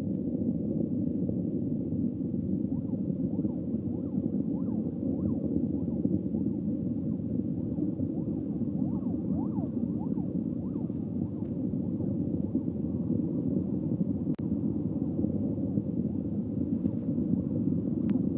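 Steady low rumble of a Soyuz rocket's engines during ascent, with its strap-on boosters and core stage firing. Faint short rising-and-falling chirps sound over it in the first half.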